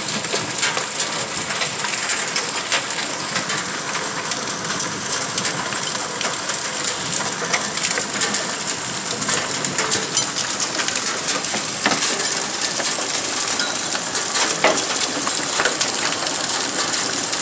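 Heavy hailstorm: hailstones, some up to golf-ball size, clattering densely and without pause on hard surfaces over the hiss of pouring rain, with a few louder single hits.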